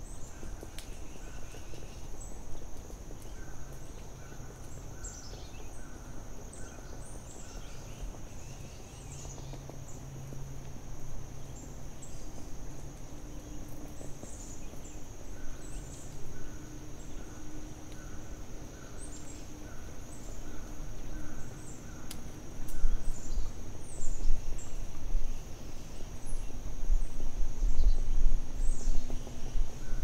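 Forest ambience: birds chirping and calling, some in short repeated notes, over a steady high-pitched hiss. A low, uneven rumble grows louder over the last several seconds.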